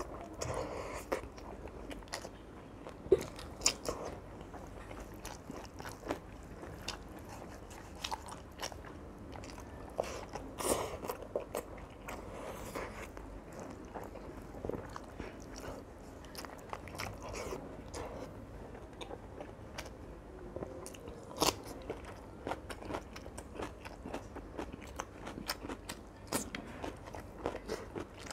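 Close-miked eating by hand: chewing and crunching on fried fish and rice, with irregular sharp mouth clicks throughout.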